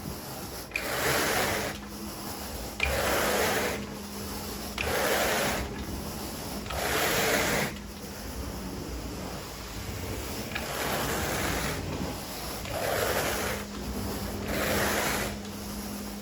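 Carpet rake dragged through carpet pile in seven rasping strokes, each about a second long, over a steady low hum.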